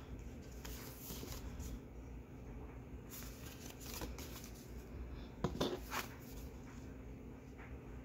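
Handmade cardstock greeting cards being handled: picked up, slid and set down on a tabletop, with soft paper rustles and two sharper taps a little past the middle.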